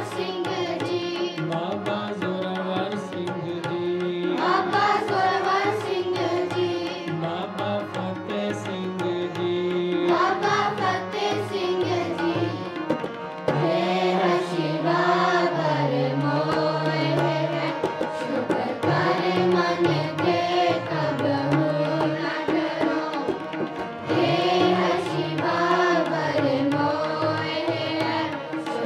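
Sikh kirtan: harmonium and tabla accompanying a sung hymn, a man's voice leading, played continuously.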